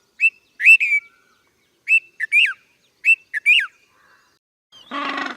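Bulbul calling: three short phrases of quick, bright whistled notes, about a second apart. A brief harsh, buzzy sound comes in just before the end.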